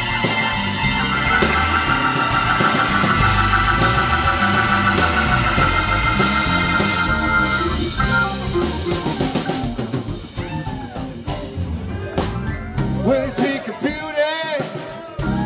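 Live jam-band music: a Hammond organ holds warbling chords over electric bass and a drum kit. About eight seconds in, the organ drops out and the music thins to drums and sparse lines that bend in pitch, leading back into the next verse.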